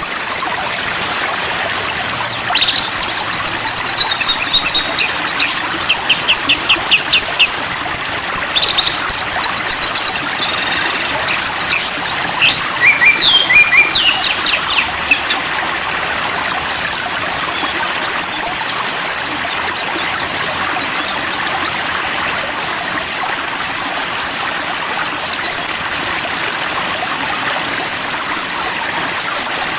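Songbirds singing rapid trilled and chirping phrases in bursts, thinning out in the middle, over the steady rush of flowing stream water.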